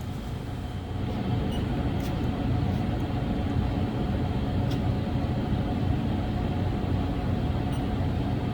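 CNC milling machine running a peck-drilling cycle: a steady machine hum that grows louder about a second in and then holds, with a few faint clicks.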